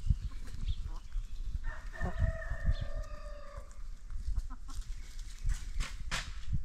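A rooster crowing once, a single drawn-out call of about two seconds, over low thumps and short rustling clicks.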